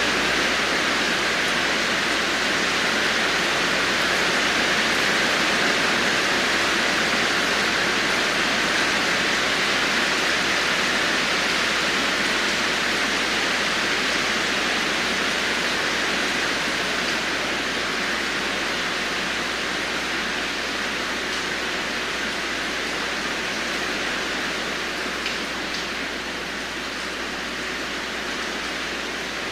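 Heavy rain falling in a steady, even hiss that comes in abruptly at the start and eases slightly toward the end.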